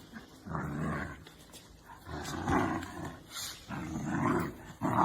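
A dog growling in a series of rough, rumbling growls, about four of them, each most of a second long.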